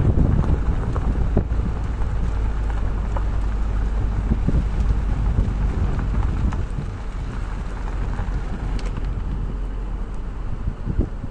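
Car tyres on a gravel track: a steady low rumble with many small stones ticking and rattling. The noise eases after about seven seconds as the surface turns to asphalt.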